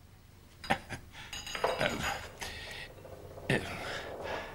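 A few light clinks and knocks, separated by brief stretches of soft rustling.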